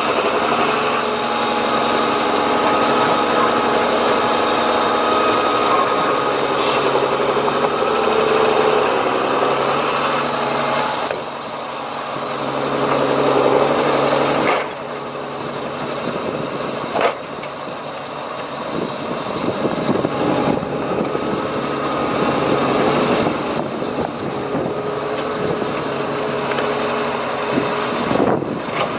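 Heavy diesel machinery engines running, the engine note shifting in pitch and level as the machines work, with a sharp knock partway through.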